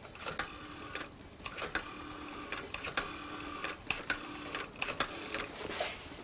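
Rotary telephone dial being turned for about six digits in a row, each wind-up ending in a click and the dial's whirring, ticking run back.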